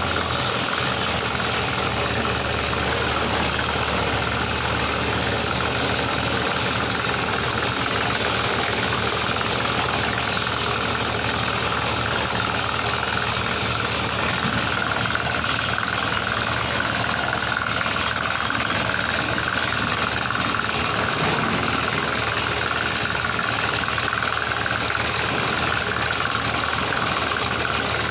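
Excavator's diesel engine running steadily at an even pace, with no revving or change in load.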